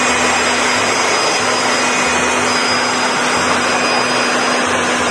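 Electric leaf blower running steadily: a loud, even rush of air with a steady hum underneath.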